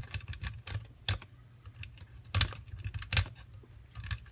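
Steel lock pick and tension wrench working the pin stack of a Tobias & Julian Piston Stroke lock cylinder: irregular light ticks and scrapes, with a few sharper clicks as pins are pushed and set. A steady low hum lies underneath.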